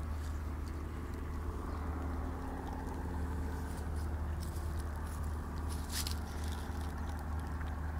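Ponies chewing and crunching food off the ground, heard as scattered faint clicks, over a steady low rumble.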